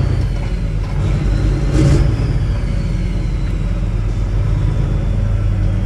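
Semi-truck diesel engine running steadily while driving, a low drone, with a faint high whine that slowly falls in pitch.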